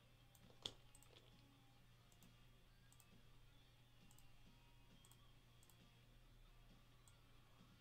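Near silence: a few faint, scattered computer mouse clicks, the sharpest one about a second in, over a low steady hum.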